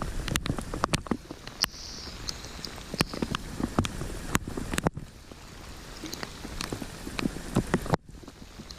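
Rain falling, with irregular sharp taps of single drops landing close by.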